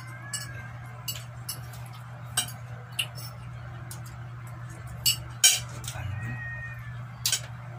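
Sharp clicks and clinks of eating at a meal table, plates and mouth noises, scattered every second or so and loudest a little past five seconds in, over a steady low hum.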